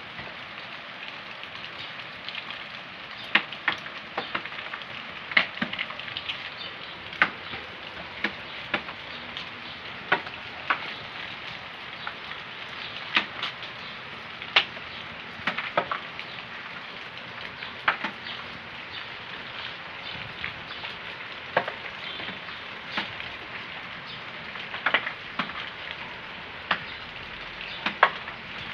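Steady hiss of rain, with sharp drips splashing close by at irregular moments, roughly once a second.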